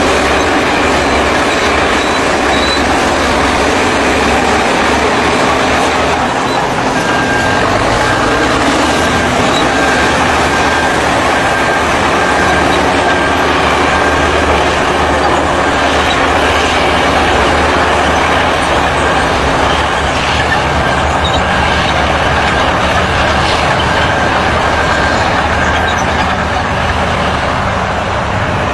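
Heavy earth-moving machinery running: a loud, steady engine drone with a repeated high beep, like a warning alarm, from about seven seconds in to about sixteen seconds.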